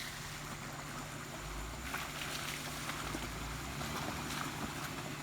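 Jeep Wrangler JKU's V6 engine running at low revs as it crawls over rocks, under a steady hiss of outdoor noise; a low rumble comes in about a second and a half in.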